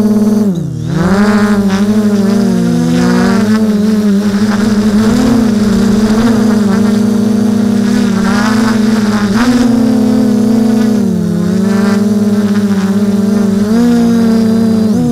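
Drone's electric motors and propellers whining steadily in flight, heard from on board. About a second in the pitch dips sharply and climbs back, and after that it keeps wavering as the motor speeds change.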